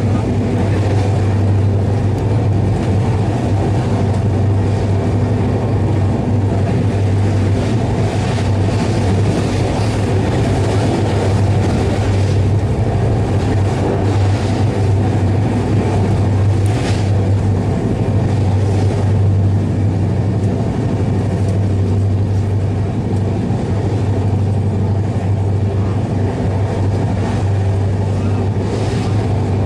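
Steady running noise of a passenger train coach at speed, heard from inside the coach: wheels rumbling on the rails under a strong low drone. A brief sharp rattle comes about two-thirds of the way through.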